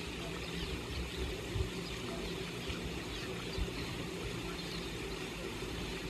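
Faint, scattered twittering of swallows at their mud nests, over a steady low rumble.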